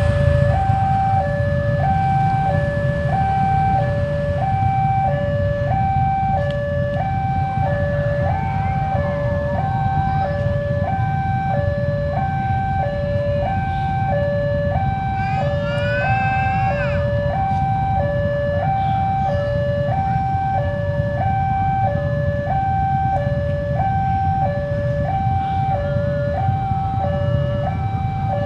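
Railway level-crossing warning alarm sounding a steady two-tone signal, a high and a low note of about half a second each alternating without a break, which warns that a train is approaching and the crossing is closed. Beneath it is a steady low rumble of waiting motorcycle engines, and a brief rising whine comes about halfway through.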